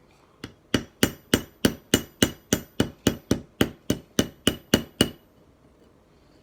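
A hammer tapping on a slip joint knife to take up blade play: about sixteen quick, even strikes at roughly three a second, each with a light metallic ring.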